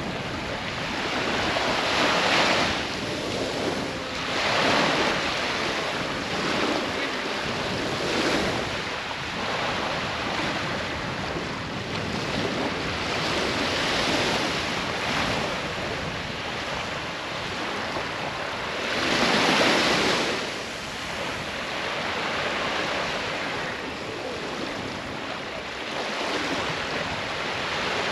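Small waves washing up on a sandy beach, the surf swelling and fading every few seconds.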